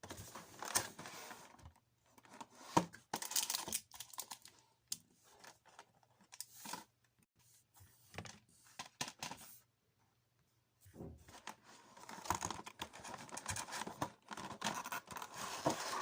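Handling noises: irregular clicks, scrapes and rustling in clusters, with a short lull a little past the middle and a busier stretch near the end.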